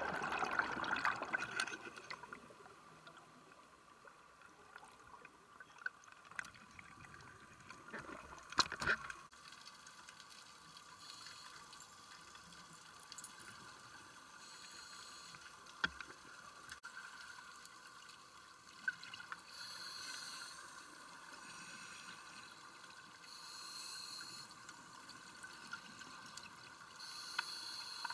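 Underwater scuba-dive sound: a rush of bubbles in the first two seconds as the camera goes under, then a faint steady hum with a few knocks. In the second half, regulator exhaust bubbles gurgle in short bursts about every four seconds.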